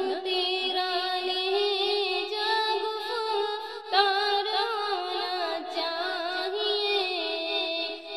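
A high voice singing a naat, an Urdu devotional song, in long held, ornamented and wavering notes, with a new phrase starting about four seconds in.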